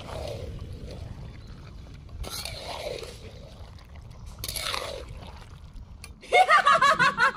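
A metal spatula scraping through thick pork and jackfruit curry in a large steel kadai, three strokes, each falling slightly in pitch, over a low steady rumble. Near the end a woman's voice starts, loud and louder than the scraping.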